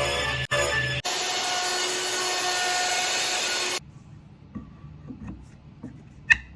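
Power saw cutting wood, its motor whine steady under the cutting noise, in a few abruptly cut clips that stop about four seconds in. After that come light taps and a sharp click near the end.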